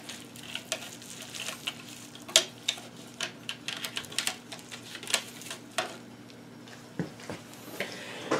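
Irregular clicks and taps of the opened plastic case and parts of a Grundig portable radio being handled and fiddled with, over a low steady hum.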